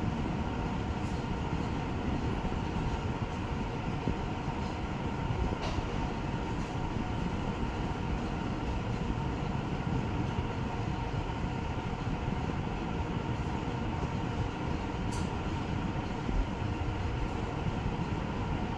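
Steady low mechanical rumble with a faint hum, unchanging throughout, with a couple of faint clicks.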